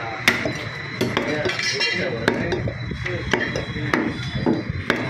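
A heavy butcher's cleaver chopping goat meat on a wooden block, with sharp strokes about once or twice a second and metallic clinks.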